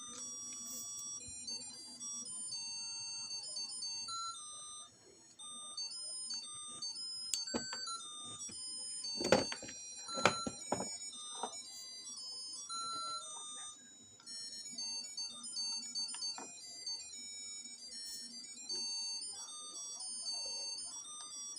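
A simple electronic melody of high beeping notes plays throughout. A few sharp knocks come about nine to eleven seconds in.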